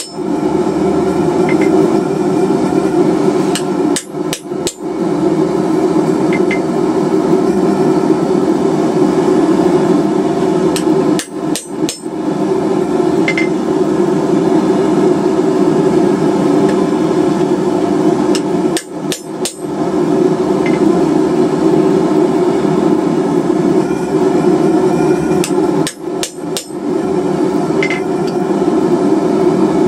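Fast, continuous hammering on hot steel at the forge, stopping briefly about every seven seconds.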